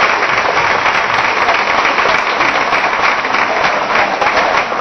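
Large crowd applauding: dense, steady clapping.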